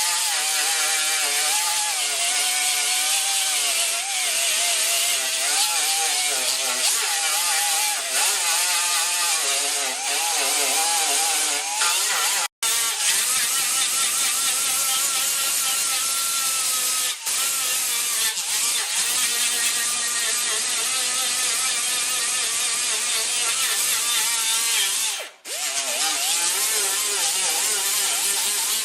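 A power tool running hard and continuously, its pitch wandering up and down as it bears on the work, with brief stops about a third, halfway and seven-eighths of the way through.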